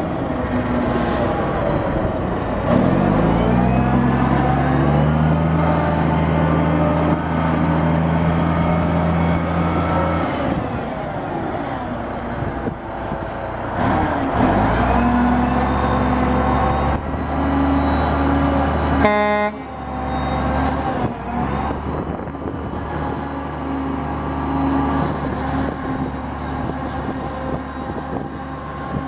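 Mack 12-litre inline-six turbo diesel running. The revs rise about two seconds in, hold steady at a higher speed until about ten seconds in, then drop back, with another brief rise in the middle. A short horn blast sounds about two-thirds of the way through.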